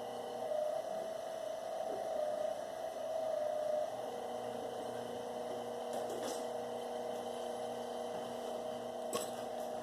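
Motorized copper wire stripping machine running with a steady hum, louder for the first few seconds as a jumper cable feeds through it, with a few sharp clicks near the end.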